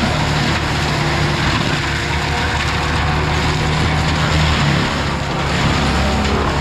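Engine of heavy equipment running steadily: a low, even engine hum with mechanical noise over it.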